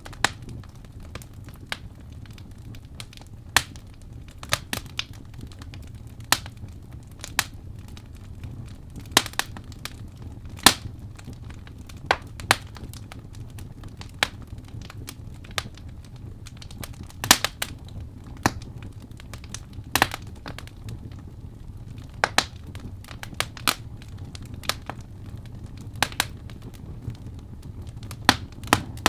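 Wood fire crackling in a fireplace: irregular sharp pops and snaps, some much louder than others, over a steady low rumble.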